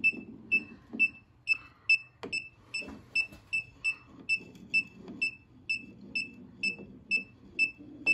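Klein ET310 circuit breaker finder beeping at an even pace of about two short, high beeps a second as it is swept over the breakers, still searching for the circuit's breaker.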